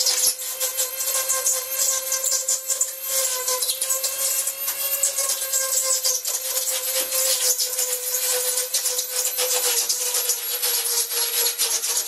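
Dremel rotary tool running at high speed with a steady whine, its bit grinding into pink foam board with a rasping, crackling hiss.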